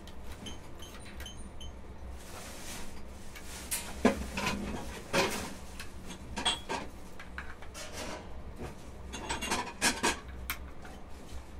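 Scattered knocks, clinks and scrapes of objects being handled, over a steady low hum.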